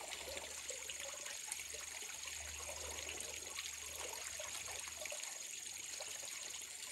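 Water trickling steadily on a duck pond, with small splashes and dabbling from white ducks swimming through the floating grass.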